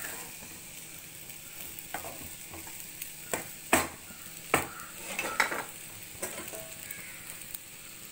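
Spatula stirring dry broken wheat with sautéed onion and carrot in a pan over a light frying sizzle. Several sharp scrapes and knocks against the pan come through, the loudest a little under four seconds in.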